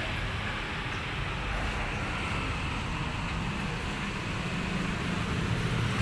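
Steady road traffic noise with a low rumble.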